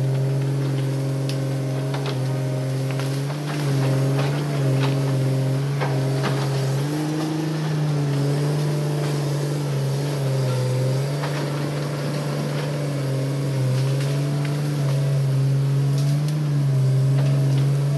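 Hitachi Zaxis 200-5G excavator's four-cylinder diesel engine running steadily under working load, its pitch sagging briefly and recovering several times as the hydraulics take load. Scattered sharp cracks of saplings and branches breaking as the machine clears brush.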